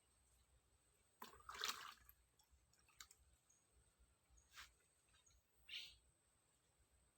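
Near silence broken by a few brief rough noises, the loudest lasting under a second about a second in, with a faint steady high tone underneath.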